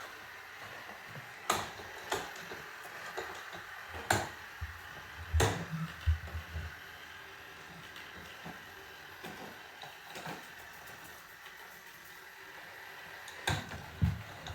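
Roomba robot vacuum running with a steady hum, broken by several sharp knocks: two in the first two seconds, a cluster between about four and six seconds in, and two near the end.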